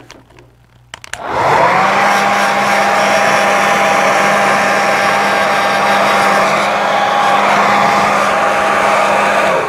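Handheld hairdryer switched on about a second in, its pitch rising briefly as it spins up, then blowing steadily with a whirring hum over rushing air to dry wet watercolor paint; it switches off near the end.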